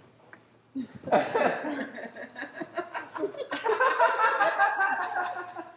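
Small theatre audience laughing, starting about a second in, growing louder, then dying away near the end.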